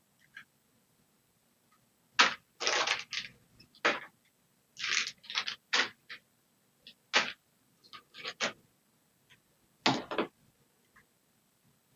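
Packaging and kit parts being handled: a string of short, irregular rustling and scraping noises, heaviest in the middle stretch.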